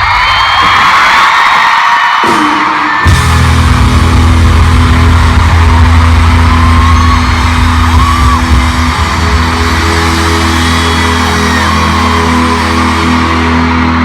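Live pop-rock concert heard from the front row, with the band playing loud and fans screaming and yelling over it. About three seconds in, a heavy, held bass comes in.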